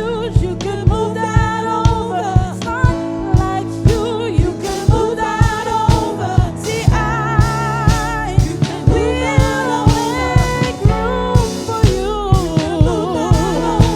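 Gospel-style worship song: a voice singing with vibrato over sustained instrument chords and a steady drum beat.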